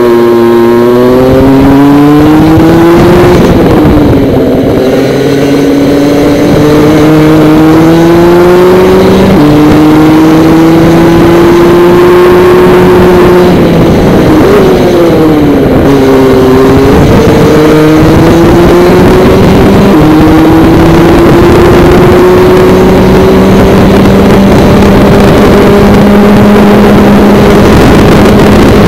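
Praga DD2 shifter kart's 125 cc two-stroke engine running hard on a lap, heard close from on board. The revs drop away under braking at the start and again about halfway through, then climb steadily back up along the following straights.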